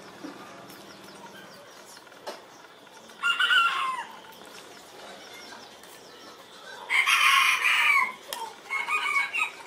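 Chicken calls: a short call about three seconds in, a longer call of about a second near seven seconds in, then several shorter clucks near the end.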